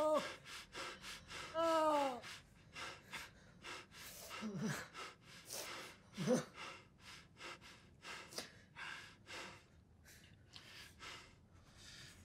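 A man breathing hard and fast through an open mouth, ragged gasps with a voiced moan that falls in pitch about two seconds in and a couple of short grunts mid-way; the breaths slow and fade toward the end.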